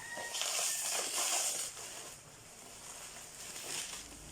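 Plastic packaging and bubble wrap rustling and crinkling as they are handled and pulled off, loudest in the first second and a half, then softer rustles.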